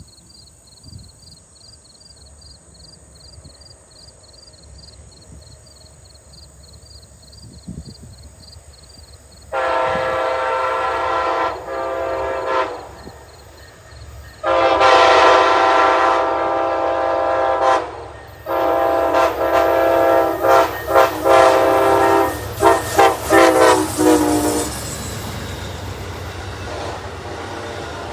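Amtrak passenger locomotive's air horn sounding a chord in long blasts: two long ones, then a third that breaks into a run of quick short toots. Before it, a faint regular high ticking about three times a second; after it, the low rumble of the passing train.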